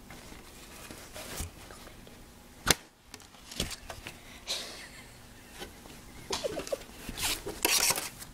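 Rustling and handling noise as a hand-held phone and cloth puppets are moved about. There is a sharp click nearly three seconds in and a denser run of rustles near the end.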